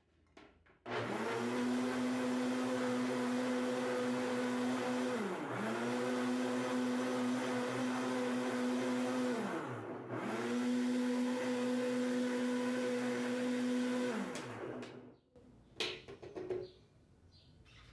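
Mallory countertop blender running, puréeing chopped cashew apples with water for juice. It starts about a second in, runs steadily, and twice briefly slows and picks up again. Near the end it winds down and stops, followed by a few light knocks.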